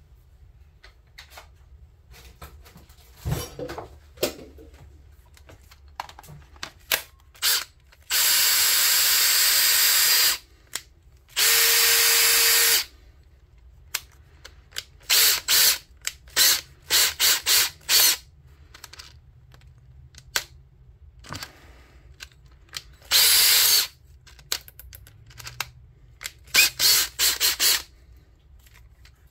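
Makita XFD13 18V cordless drill running with its newly fitted all-metal chuck: two longer runs of about two seconds and a second and a half, then a string of short trigger bursts. A knock and a few clicks come before the first run.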